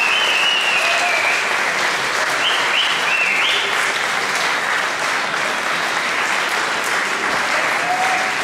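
Audience applauding steadily, with a few short high tones about two to three and a half seconds in.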